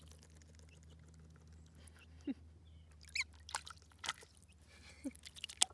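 Gosling dabbling and paddling in shallow bath water, making faint scattered clicks and small splashes over a low steady hum.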